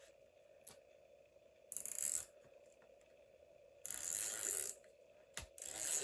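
Paper being handled for journal pages: three short rustles about two seconds apart, with a couple of light clicks between them.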